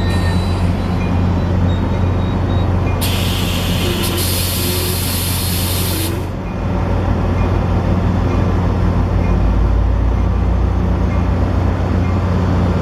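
Train at the platform with its diesel locomotive running in a steady low rumble; about three seconds in, a loud hiss of air from the air brakes lasts about three seconds and cuts off.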